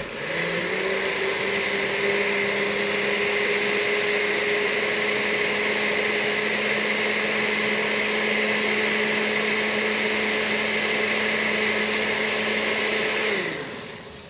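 Countertop blender motor running at a steady high speed, puréeing a thick tomato and tortilla sauce. It dips and picks up again right at the start, then winds down with a falling pitch and stops about a second before the end.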